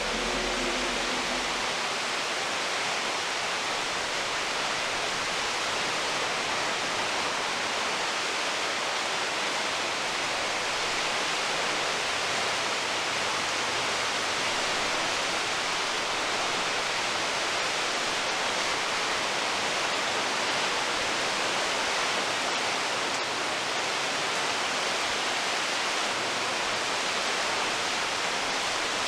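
Floodwater of a swollen creek rushing and churning past a concrete bridge pier: a steady, unbroken rush of turbulent water.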